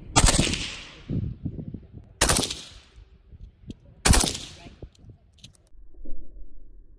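Rifle fire: three loud shots or short bursts about two seconds apart, each trailing off in echo over about a second.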